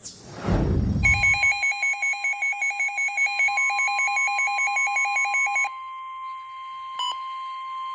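Weather radio alert tones. A burst of noise sweeping down in pitch comes first. Then a rapidly pulsing electronic alarm runs over the steady 1050 Hz NOAA Weather Radio warning tone for about five seconds, and the steady tone carries on alone, signalling that a warning broadcast is about to follow.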